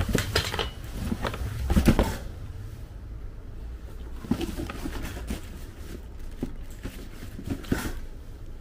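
Knocks and clatter of motorcycle parts being handled and set down, the loudest knock about two seconds in, over a steady low hum.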